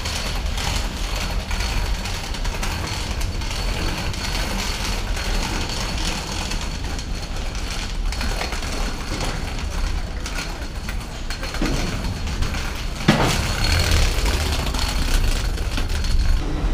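Steady low mechanical rumble with a thin, constant high whine from the machinery around a parked airliner at the boarding bridge, with a few sharp clicks and knocks in the last few seconds.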